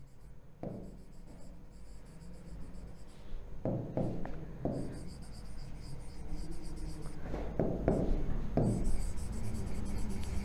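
Pen writing on an interactive whiteboard screen: light scratching strokes with a few sharper taps and knocks as letters are formed, a cluster of them about four seconds in and again near the end.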